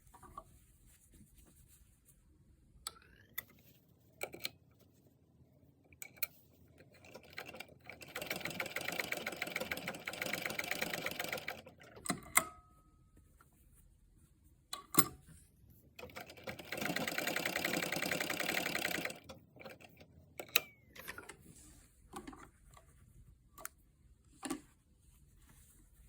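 Sewing machine running in two bursts of rapid stitching, one about four seconds long and a second about three seconds long. Between the bursts there are sharp clicks and knocks from handling.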